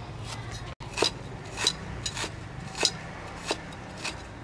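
Chinese cleaver chopping ginger on a thick round chopping block: six sharp knocks at an even pace, a little over half a second apart.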